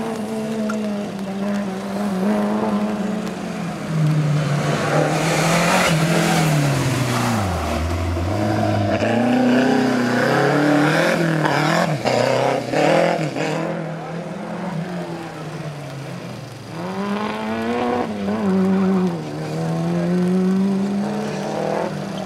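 Renault 5 rally car's engine revving hard on a twisting stage. Its note climbs under acceleration and falls sharply several times as the car brakes and changes down for the bends.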